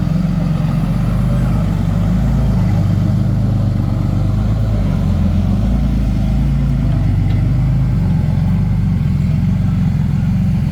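Diesel dump truck engine running on its stock, un-remapped tune: a deep, steady drone whose pitch shifts a little around the middle.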